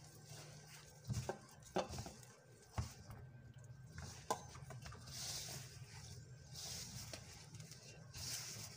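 Hand mixing flour and milk into a dough in a stainless steel bowl: soft rubbing with a few light knocks against the bowl.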